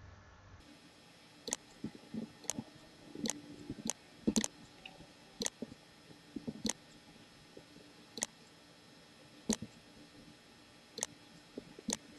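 Computer mouse clicking, about a dozen single clicks at irregular intervals, while trading positions are closed one after another.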